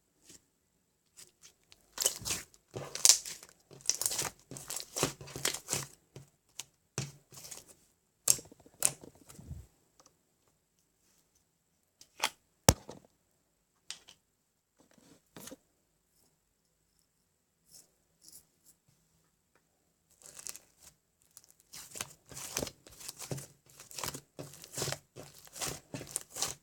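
Handling noises: irregular rustling and crinkling in bursts with pauses between, a single sharp click near the middle, and a busier run of rustling near the end.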